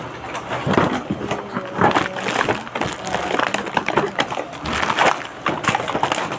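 Cardboard and plastic toy packaging being handled: irregular rustling, crinkling and light knocks.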